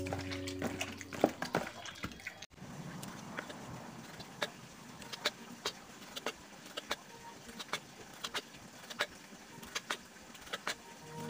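A kitchen knife chopping cooked apple snail meat on a wooden cutting board: irregular sharp knocks, about one or two a second. In the first two seconds, hands swish snails about in a bowl of water.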